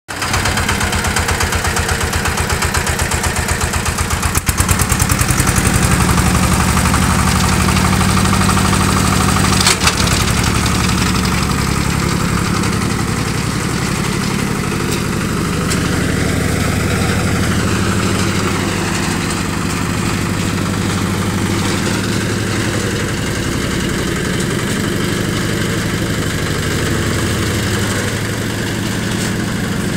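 Engine of a homemade mini-tractor built from a Zubr 10 walk-behind tractor, running with an even, rapid pulse. It gets louder about four and a half seconds in, gives a short sharp knock near ten seconds, then runs steadily as the tractor drives off.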